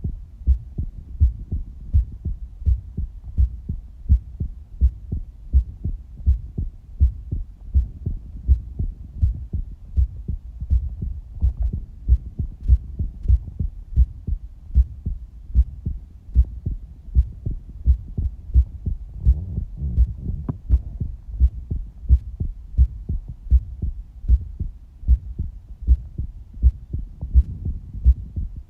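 Human heartbeat: an even, continuous rhythm of low, dull thumps.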